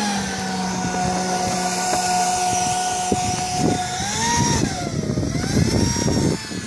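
The 120 mm electric ducted fan of a Mirage 2000 model jet whining steadily as it taxis. Its pitch rises and falls twice in the second half as the throttle is opened and eased.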